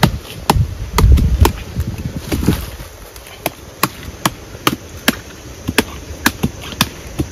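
A blade chopping into coconut palm wood to open it up for palm grubs: sharp knocks, heavier at first, then a quick even run of about two or three strokes a second through the second half.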